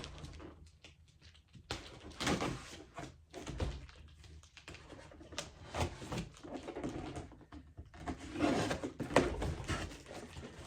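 A cardboard shipping box being opened and handled by hand: scattered knocks, taps and scrapes of cardboard, with busier rustling of the packing near the end.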